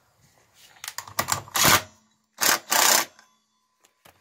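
Metal clicking and rasping as a lock washer and nut go onto the clutch hub of a Kinetic moped: a few sharp clicks, then three short, loud rasping bursts.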